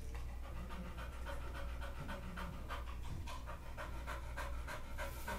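A dog panting rapidly, about three quick breaths a second, while recovering from intestinal surgery.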